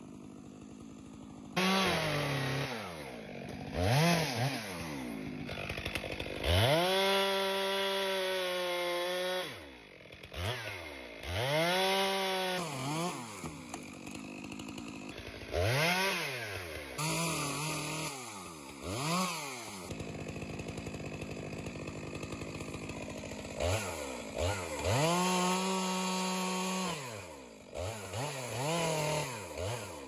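Stihl MS 462 two-stroke chainsaw limbing a felled Douglas fir: the engine is revved up to full throttle for about a dozen cuts of half a second to three seconds each, dropping back to idle between them.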